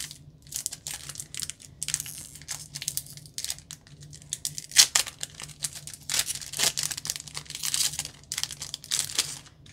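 A foil Pokémon booster pack being torn open by hand, its wrapper crinkling in a string of short, sharp rustles. The sharpest rip comes about halfway through.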